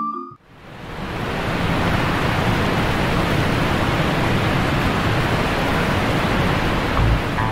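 A steady, even rushing noise with no tune or rhythm, fading in over the first second or two, then holding level. A low bass note comes in near the end.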